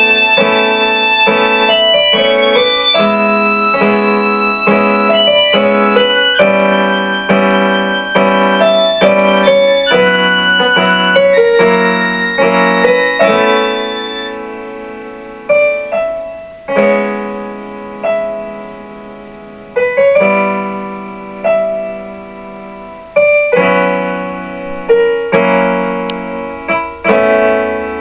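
Piano music: a busy passage of many notes, which from about halfway through gives way to slower single chords, each struck and left to fade.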